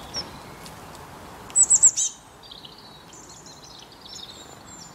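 Songbird calls: a short high chirp, then four quick loud high-pitched notes about one and a half seconds in, followed by softer, varied twittering.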